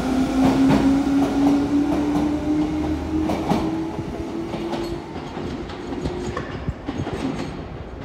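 Enshu Railway 1000 series resistance-controlled electric train pulling away: a motor whine rises slowly in pitch and drops out about five seconds in, while the wheels clack over the rail joints. The sound fades as the train draws off.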